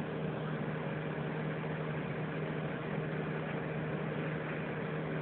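A steady low hum over a continuous hiss, unchanging throughout.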